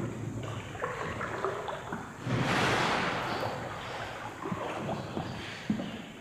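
Water sloshing and splashing around a paddled boat, with a louder rush of splashing about two and a half seconds in and scattered small knocks.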